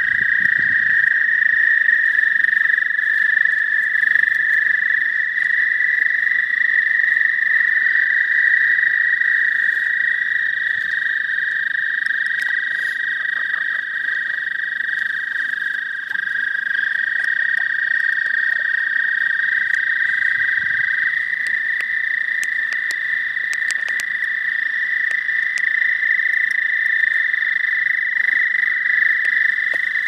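A chorus of toads trilling: several long, steady trills overlap at slightly different pitches, one dropping out and another taking over now and then. Males call like this in spring to draw females to the breeding water.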